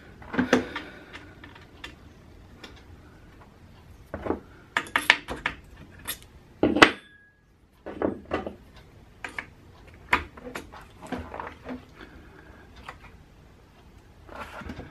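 Irregular clicks, clinks and taps of a punch and small metal parts as the trigger-group pins are worked back into a Remington 11-87 shotgun's receiver, with the loudest knock about midway.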